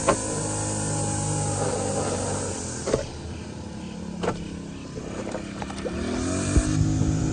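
An engine running steadily, its pitch rising as it revs up about six seconds in, with a few sharp knocks during the work in the pit.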